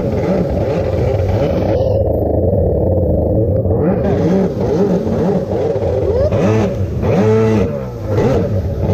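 Yamaha SuperJet stand-up jet ski's ported two-stroke engine revving up and down under throttle while riding, its pitch rising and falling repeatedly. About two seconds in, the sound turns muffled for around two seconds, then clears.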